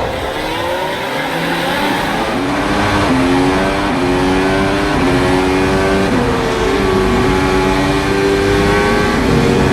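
A field of Formula One cars accelerating hard away from a race start. Several high-revving engines are heard at once, climbing in pitch, with gear changes dropping the pitch about three and six seconds in.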